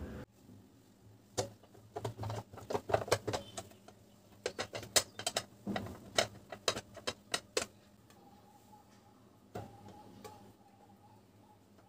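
Quick clicks and scrapes of a block of butter rubbed back and forth across the ridged metal plates of an open electric sandwich grill, lasting about six seconds. After that only a faint steady tone remains.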